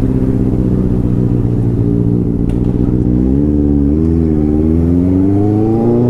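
Motorcycle engine running steadily, then revving up, its pitch climbing gradually from about halfway through with a brief dip along the way.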